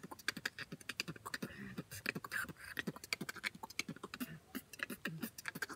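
Beatboxing by a young man: a fast, steady run of mouth-made kick, hi-hat and snare sounds built from the basic B, T and K sounds.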